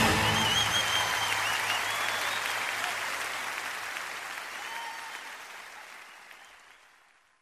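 Large crowd of children applauding, with a few high shouts, right after the dance music stops; the sound fades steadily out to silence over about seven seconds.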